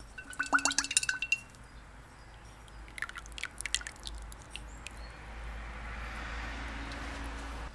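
Sharp ringing glass clinks in the first second and a half, then a cluster of lighter clicks about three seconds in, as a small glass bottle of roasted sesame oil is handled and tipped over a ceramic bowl of soy marinade. A soft steady hiss follows near the end.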